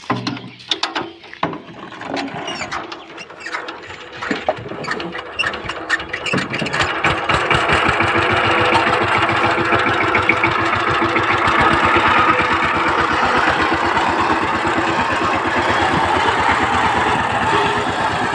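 Single-cylinder diesel engine of a two-wheel power tiller being started by hand: a few seconds of irregular knocks and coughs as it is turned over. It catches about six seconds in and then runs with a steady, fast firing beat.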